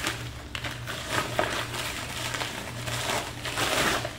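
Packaging being opened and handled by hand: irregular rustling and crinkling with small scrapes and taps.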